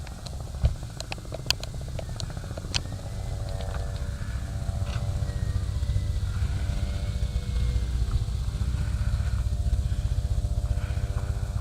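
Helicopter coming in to land, its rotor chop and engine drone growing louder from about four seconds in.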